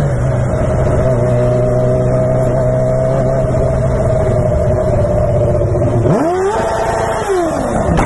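Sport motorcycle engine running steadily at low revs. About six seconds in it revs up sharply, then the revs fall away.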